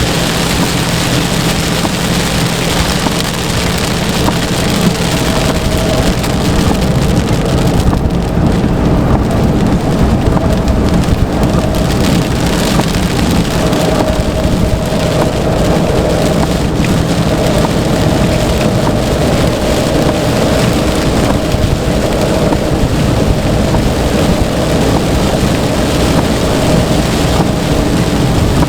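Heavy rain falling steadily, a dense, even hiss, with a faint steady hum underneath.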